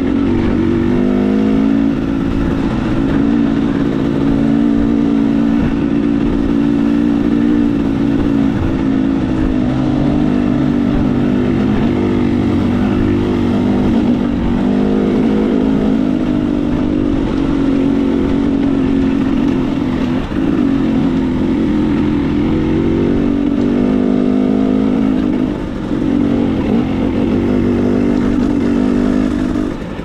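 KTM 300 XC-W two-stroke single-cylinder dirt bike engine running under load on a rough trail, its pitch rising and falling with the throttle. It drops off briefly twice in the second half as the throttle closes.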